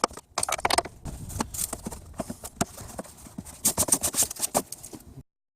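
Hand tools clicking and clinking against metal in irregular strokes while the strut is fastened in place. The clicks crowd together in a quick run near the end, and then the sound cuts off suddenly.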